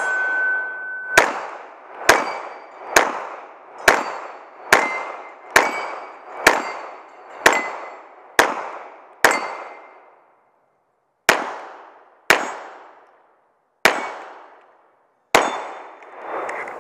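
A 9mm Glock 19 Gen 5 pistol fired at a steady slow pace, about one shot a second, each shot followed by the ringing clang of a steel target plate. The shots slow and space out in the last few seconds.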